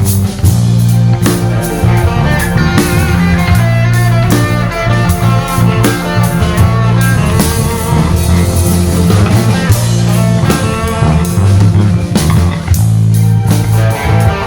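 A live five-piece band of saxophone, guitar, keyboard, bass and drums playing an instrumental piece, with a strong bass line under steady drumming.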